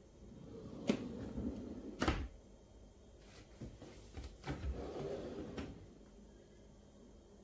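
Kitchen drawers: one slid shut with a couple of knocks in the first two seconds, then a lower drawer pulled open, sliding out between about four and six seconds in.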